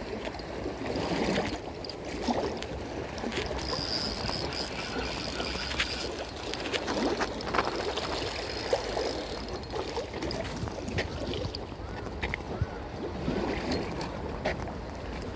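Spinning reel being wound in with scattered clicks, retrieving a hooked bigfin reef squid on an egi. A thin high whine runs for about two seconds from about four seconds in, over a steady wash of wind and lapping water.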